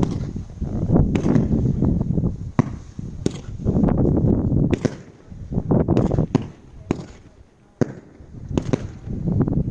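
Consumer fireworks going off: a string of sharp bangs at irregular intervals over a rumbling background, with a brief lull near the end.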